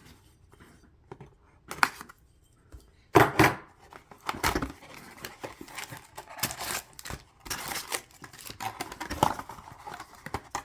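Plastic wrap and cardboard of a hockey-card box being crinkled, torn and handled as the box and its packs are opened. Irregular rustles, scrapes and small clicks, loudest about three seconds in.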